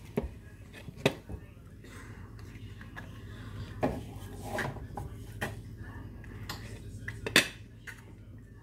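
Tableware clinking and knocking now and then, a handful of short separate strikes, the loudest about seven seconds in.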